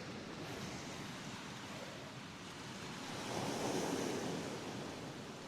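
Sea waves washing onto a rocky shore: a steady rush of surf that swells up about three seconds in and falls back.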